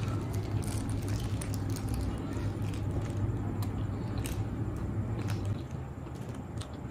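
Close-miked chewing of a mouthful of shawarma wrap: soft wet squishing with scattered small clicks, over a steady low hum.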